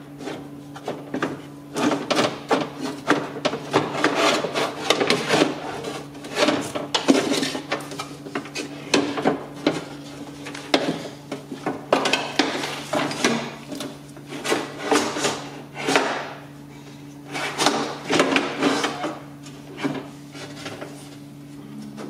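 A BMW E46 cable-type window regulator being wrestled out through the steel door shell: irregular scraping and rubbing with short knocks and rattles as its rails and cable catch on the door's sheet metal. A steady low hum runs underneath.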